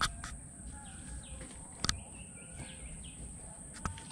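Outdoor riverbank ambience: faint bird chirps over a steady high-pitched whine and a low rumble, with sharp clicks near the start, about two seconds in, and near the end.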